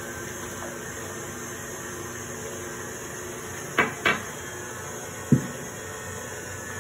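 Stand mixer running steadily on low speed. Two sharp knocks come just before four seconds in and one more a second and a half later, as dishes are handled on the countertop.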